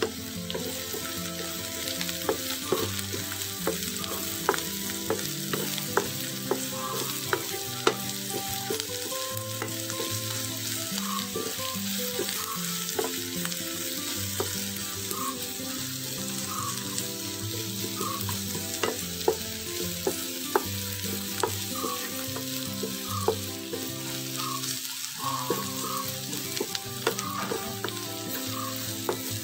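Sliced onions sizzling in hot sunflower oil in a nonstick pan as they are sautéed toward browning. A wooden spatula stirs them, with sharp knocks against the pan now and then.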